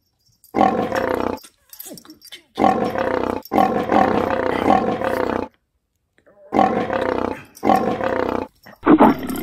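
Big-cat roars and snarls, a lion or tiger sound effect laid over a house cat at play: a series of loud roars, each one to two seconds long, with dead silence between them.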